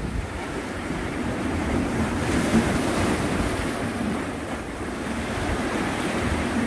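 Sea waves washing against concrete tetrapods, with wind buffeting the microphone as a continuous rushing noise.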